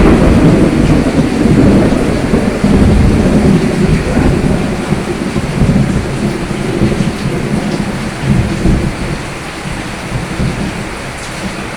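Rain falling steadily under a rolling rumble of thunder that breaks in loud and slowly fades away toward the end.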